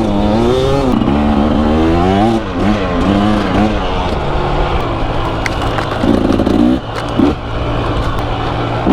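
Two-stroke KTM 300 EXC enduro bike engine revving up and down repeatedly, then running more steadily at lower revs.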